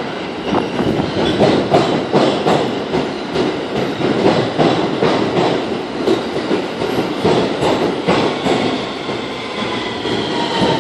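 R160 subway train pulling into the station alongside the platform. Its wheels clack over the rail joints in a quick, uneven run of clicks. From about eight seconds in, a high whine falls in pitch as the train slows.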